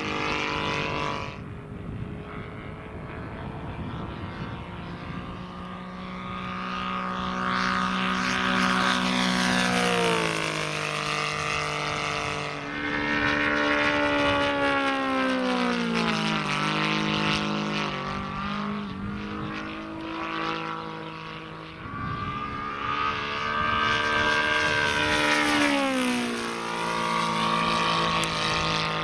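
Saito FG90R3 three-cylinder four-stroke radial petrol engine in a 1/5 scale Corsair model, running at flying power through repeated passes. The note swells as the plane nears and drops in pitch several times as it goes by.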